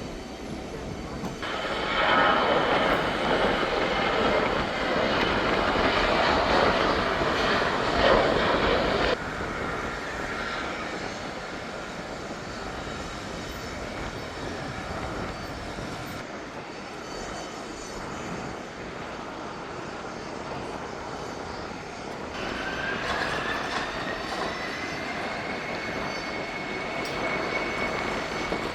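Jet airliner engines running, loud and rushing, cutting off suddenly about a third of the way in; a quieter steady engine sound follows. About three-quarters of the way in, a turbine whine rises in pitch and levels off as an engine spools up.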